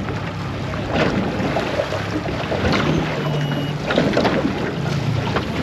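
Small fishing boat moving across the water with a low, steady motor hum that shifts in pitch a few times, and wind on the microphone.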